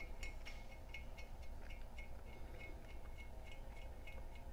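Ratchet wrench clicking steadily, about four clicks a second, as it runs a nut down on one of the regulator's spring-tower bolts.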